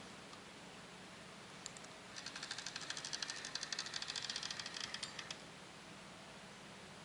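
An insect stridulating: a bout of rapid, dry, high ticking that starts about two seconds in and stops about three seconds later, over faint steady background.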